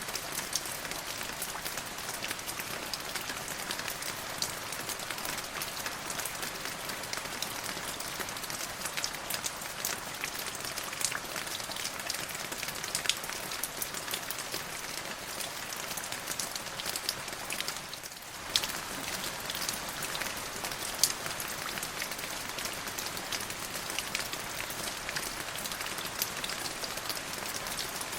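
Steady rain falling on a surface, an even hiss dotted with sharp individual drop ticks, which thins out briefly about two thirds of the way through.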